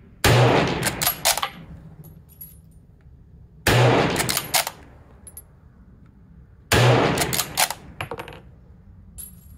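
Three shots from a Lee-Enfield No. 1 Mk III .303 British bolt-action rifle, about three seconds apart. Each shot is followed by a few quick metallic clicks as the bolt is worked, cycling the rounds through without a rim jam.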